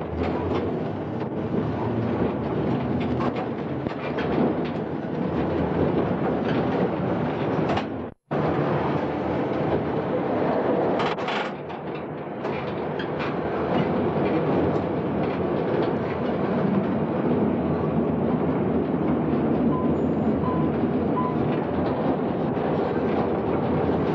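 Tram running on its rails: a steady rumble of wheels and running gear. The sound cuts out for an instant about eight seconds in.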